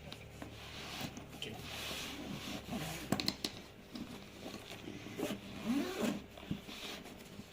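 Drone box and packaging being opened and handled by hand: rustling, with scattered clicks and knocks, the sharpest cluster about three seconds in.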